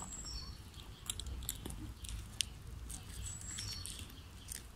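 Quiet outdoor background with a low rumble, scattered light clicks and taps, and a few short high chirps, heard twice a few seconds apart.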